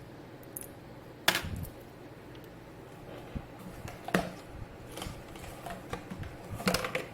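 Scattered sharp clicks and light knocks of small hard plastic parts and tools being handled on a work surface: a strong click about a second in, another about four seconds in, and a cluster of clicks near the end.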